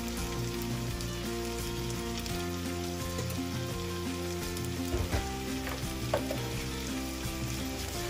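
Vegetables and rice sizzling in a frying pan on the stove, a steady hiss, with a few light clicks of utensils about five and six seconds in.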